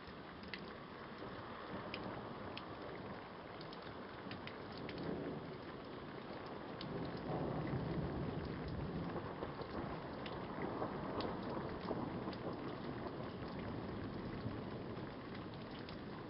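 Thunderstorm: steady rain with scattered sharp ticks of drops, and a low rumble of thunder that swells about five seconds in, is loudest a couple of seconds later, and rolls on before easing.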